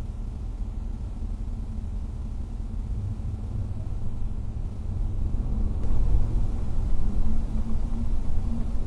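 Road and engine noise of a car driving on a highway, picked up by its dashcam inside the cabin: a steady low rumble that grows louder about six seconds in.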